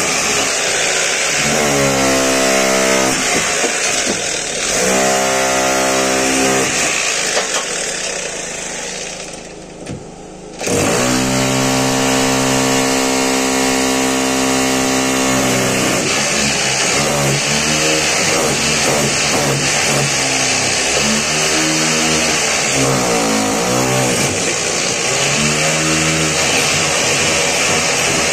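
Handheld power drill drilling into masonry, its motor pitch sagging and recovering again and again as the bit bites. It stops briefly about nine seconds in, then runs on.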